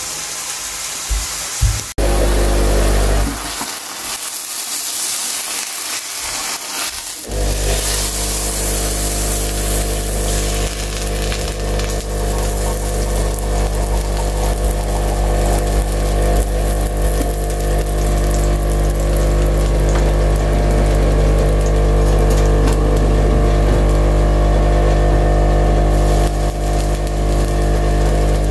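Background music of steady held notes, with a tortilla and minced meat sizzling in oil in an electric frying pan underneath it.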